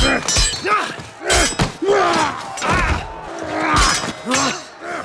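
A rapid string of short human grunts and exertion noises, about seven in all, one every half second or so. Each one is abruptly cut against the next, and occasional thuds and sharp knocks fall between them.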